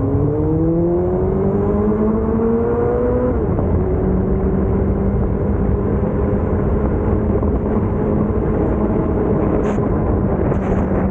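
Nissan SR20VE four-cylinder engine through a straight-piped exhaust. The car accelerates with the revs climbing, the revs drop sharply about three seconds in, and it then runs at steady revs under road noise.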